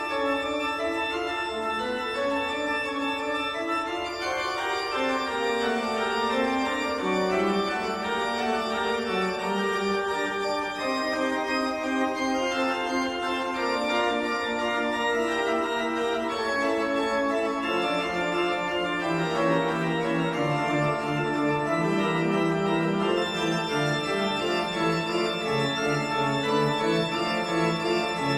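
Background music on an organ: sustained chords with notes changing every second or so.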